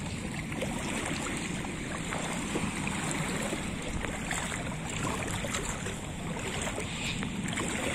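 Sea water washing over and around shore rocks, a steady rush of surf.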